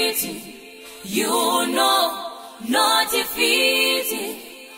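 Gospel choir singing in harmony, in sung phrases of about a second and a half with short pauses between them.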